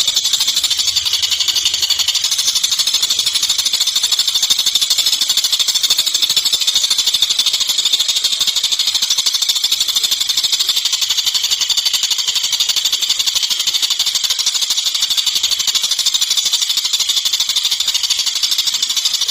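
Tengkek buto kingfisher calling in a fast, unbroken rattling trill of high, rapidly repeated notes.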